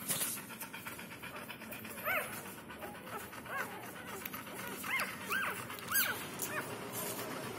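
Newborn puppies, two days old, squeaking and whimpering as they nurse: many short, high squeaks that rise and fall, coming thicker from about two seconds in.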